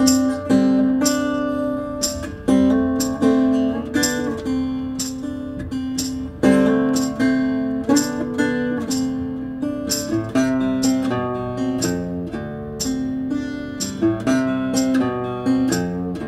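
Background music on acoustic guitar: plucked notes, each ringing out and fading.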